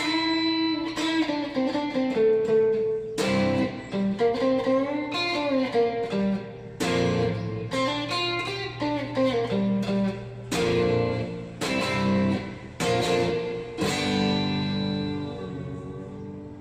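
Electric guitar through a VOX VT40X modelling amp playing a short phrase of picked chords and melody notes, ending on a chord that rings out and fades. A faint steady low hum sits underneath.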